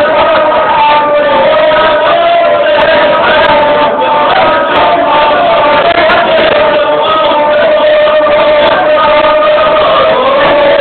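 Gusle epic singing: a voice chanting over the gusle's continuous bowed line, one wavering held pitch that never breaks.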